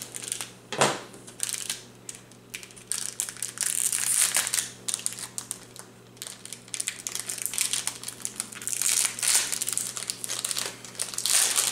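Plastic packaging crinkling and crackling in irregular bursts as it is handled to unwrap a crankbait fishing lure.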